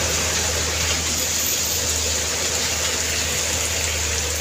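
Heavy rain and the hiss of tyres on a wet road as a large truck drives past, its engine a steady low hum under the spray noise.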